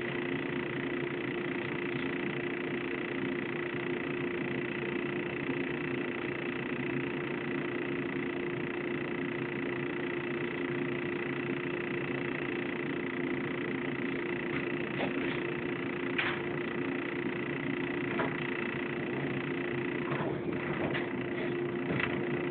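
JR 115 series electric train standing still at a station, heard from inside the car: a steady hum with one constant low tone and a higher whine over its running electrical equipment, and a few light clicks near the end.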